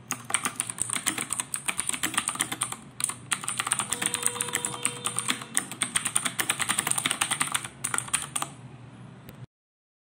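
Fast, continuous typing on a computer keyboard, a dense run of key clicks with a brief pause about three seconds in, stopping near the end.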